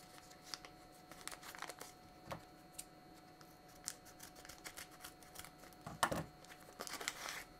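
Waxy paper wrapping crinkling as it is cut with scissors and peeled open: scattered small crackles and snips, with louder rustling about six seconds in and again near the end.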